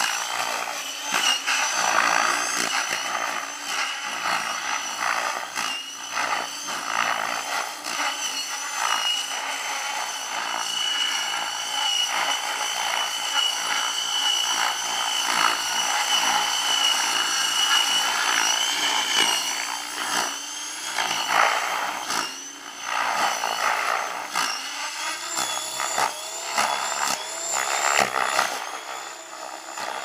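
Compass Atom 6HV electric model helicopter in flight, its motor and rotor head giving a high, steady whine that wavers slightly in pitch. Wind gusts buffet the microphone the whole time.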